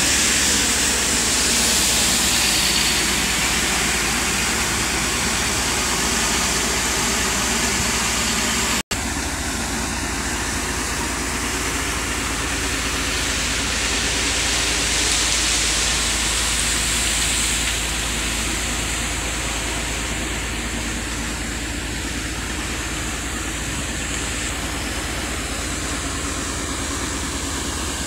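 Steady drone of a cutter suction dredger's machinery running, a constant low hum under a broad hiss, with a momentary break about nine seconds in.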